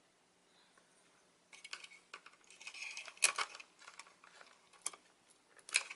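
Small sharp clicks and light rattling of plastic and metal laptop parts being handled, starting about a second and a half in, with the loudest clicks about three, five and six seconds in.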